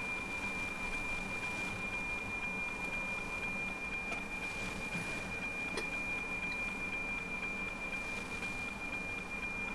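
NOAA 18 weather satellite's APT image signal heard through a narrow-FM receiver: a steady high whistling tone (the signal's subcarrier) in a bed of static hiss. The satellite is only a few degrees above the horizon, so the signal has not yet reached full quieting.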